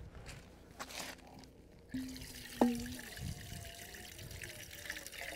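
Water being poured into used cookware to loosen the cooking residue, a steady trickle starting about two seconds in. A sharp knock comes shortly after the pour begins.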